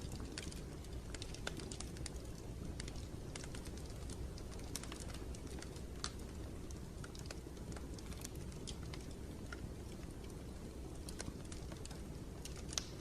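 Continuous ambient noise for sleep: a steady low rumble with soft, irregular clicks and crackles scattered through it.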